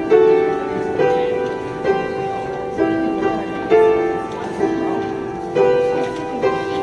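Upright piano played by hand, a slow, steady tune with a new note or chord struck about once a second, each ringing on until the next.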